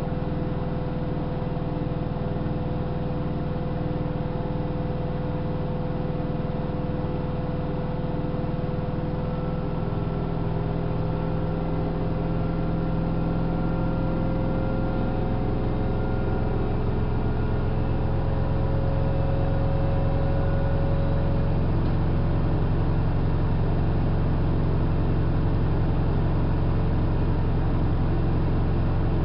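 Hanseatic HWM814A3D front-loading washing machine running at speed, a steady motor and drum hum whose tones glide slowly upward and grow a little louder as the drum speeds up in a spin phase.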